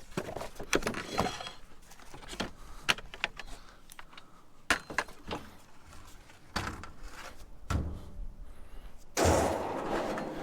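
Scrap metal pieces being knocked and handled in a dumpster: scattered sharp clanks and knocks, tapped to judge whether they are aluminum or steel, with a louder scraping rustle about nine seconds in.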